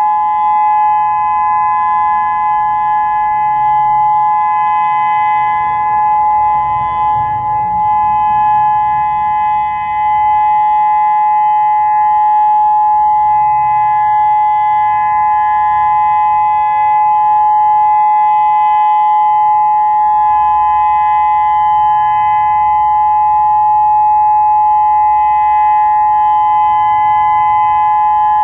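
Federal Signal Modulator 6024 electronic warning siren sounding its steady dual-tone alert, two pitches held together without change. From about ten seconds in, a second, more distant siren winds down, its tone falling slowly beneath the steady one.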